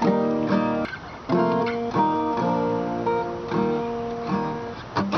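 Acoustic guitar strumming chords in a steady pattern, about ten strokes with a brief pause about a second in: the instrumental intro of a folk song.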